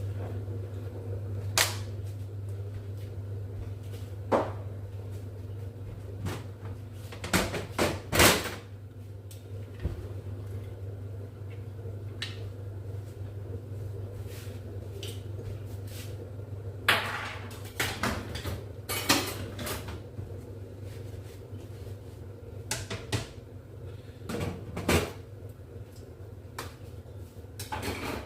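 Kitchen work sounds: scattered knocks and clatters of dishes, pots and cupboard doors being handled, over a steady low hum.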